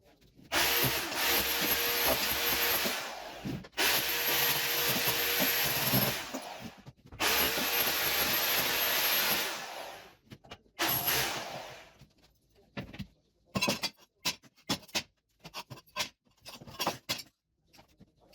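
Electric power tool running in three long bursts of about three seconds each, then a shorter one, as old kitchen tiles are removed; scattered knocks and clatters follow near the end.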